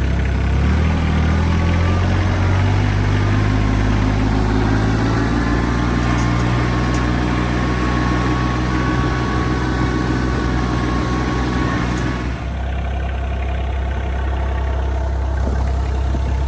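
RK 25 compact tractor's diesel engine running steadily, then settling to a lower, quieter note about twelve seconds in.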